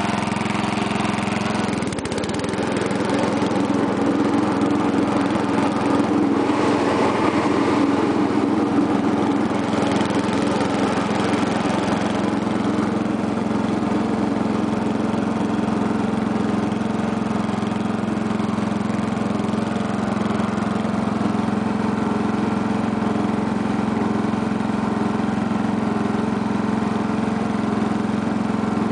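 A 1975 Sears lawn tractor's 8 HP Briggs & Stratton single-cylinder engine running steadily as the tractor drives along. The first ten seconds or so are noisier and rougher, then it settles to an even hum.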